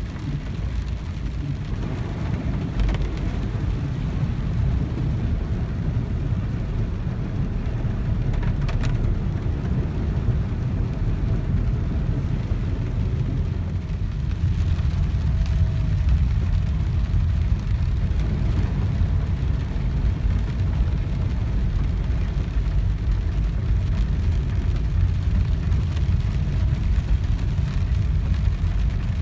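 Steady low rumble of a car driving on wet roads, heard from inside the cabin, with tyres on wet tarmac and rain on the windscreen.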